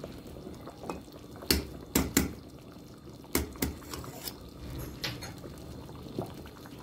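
Metal ladle clinking against stainless steel pans in about seven sharp knocks as tomato-paste sauce is scraped from a small pan into a pot of soup, with liquid dripping and splashing in between.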